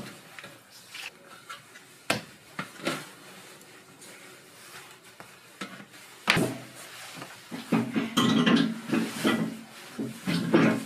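Scattered knocks and clatter of kitchen work, with soft thuds and rubbing as a large mass of yeast dough is pressed and folded on a floured table. The sharpest knock comes about six seconds in, followed by a busier stretch of handling near the end.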